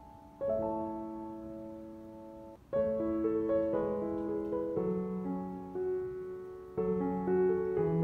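Slow, soft background piano music: chords struck about half a second in, near three seconds and near seven seconds, each ringing on and fading under a gentle melody.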